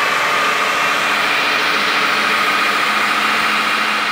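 Ninja Professional 1500-watt blender's motor running steadily on its dough setting, mixing flour and warm water into pizza dough, with a steady high whine.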